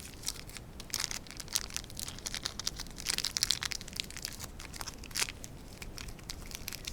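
Packaging being ripped open by hand, an irregular crinkling and crackling with scattered sharp clicks.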